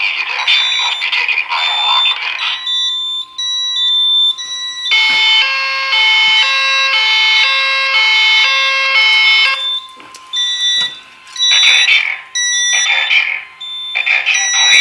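Fire alarm voice evacuation unit (DV-200) sounding through a speaker: a recorded voice announcement alternates with a loud electronic evacuation tone, a stepped pattern of several tones lasting about four and a half seconds in the middle. Short high alarm tones repeat throughout.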